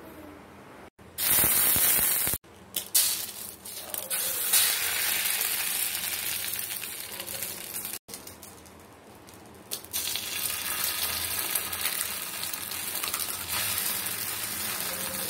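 Eggs sizzling as they fry in oil in a cast-iron skillet: a steady hiss that starts about a second in, loudest just after it starts, with a couple of brief breaks.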